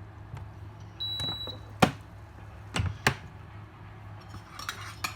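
A rice cooker being switched off: one short, high electronic beep about a second in, then three sharp clicks or knocks. A light clatter follows near the end, all over a steady low hum.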